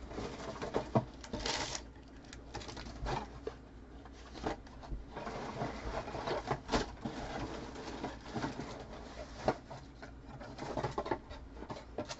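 Trading-card packs, foil wrappers and cardboard boxes being rummaged through by hand: irregular rustles and light clicks over a low steady hum.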